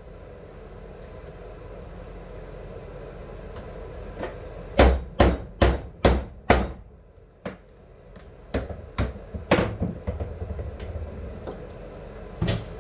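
Hammer blows on a metal bearing driver, seating a new bearing race in a BMW differential. There is a quick run of five strikes about half a second apart, then three more, then a last one near the end.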